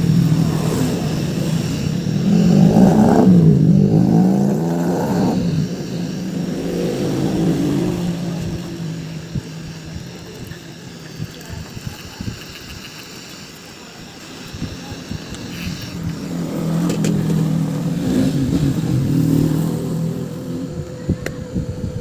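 Handheld heat gun blowing hot air steadily over a phone display to soften the screen adhesive. A motor vehicle engine swells and fades twice over it, loudest about three seconds in and again near the end.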